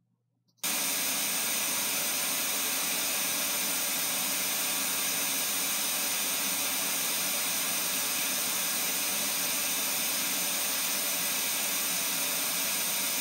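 Test noise played through a loudspeaker: a steady, even hiss that switches on suddenly just over half a second in, after near silence, and then holds at one level, reading about 73 to 76 dB on the two sound level meters.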